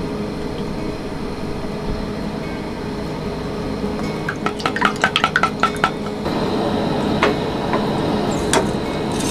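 Camp dishes and utensils clinking: a quick run of sharp clinks about four to six seconds in, then a few single clinks near the end.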